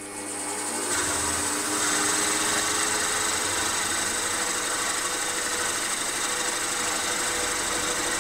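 Milling machine spindle running as a 12 mm slot drill plunges into a cast iron piston: a steady machining whirr with a cutting hiss. It builds up over the first second, then holds.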